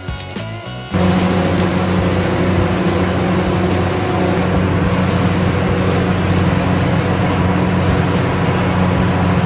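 An electric power tool switches on about a second in and runs steadily: a loud hiss of air or cutting with a steady motor hum underneath.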